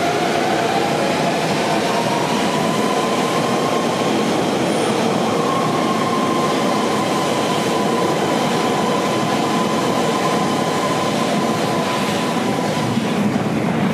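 London Underground 1992 Stock Central line train pulling out of the platform: a motor whine rises in pitch over the first few seconds and then holds steady, over a constant loud rumble and clatter of wheels on rail.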